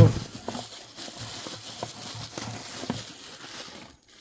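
Scattered light clicks and knocks of a metal valve spring compressor and its parts being handled.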